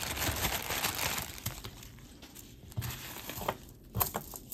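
Wrapping material crinkling as a wrapped piece of jewelry is opened, loudest in the first second and a half, followed by a few light clicks.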